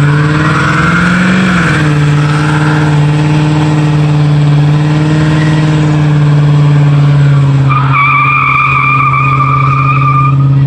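A car doing a burnout: its engine revs climb over the first second or so and are then held high and steady while the driven tyres spin and smoke. From about eight seconds in a wavering tyre squeal rises over the engine, and both cut off right at the end.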